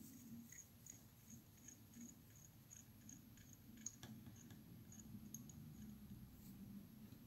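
Near silence with faint, quick ticking, about three ticks a second, as tying thread is wrapped around a fly hook's shank with a bobbin holder, and one sharper click about four seconds in.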